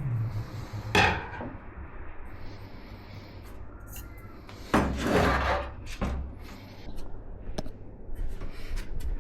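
Hands handling and fitting PC parts: a sharp knock about a second in, a longer rubbing scrape in the middle, then small clicks and taps near the end.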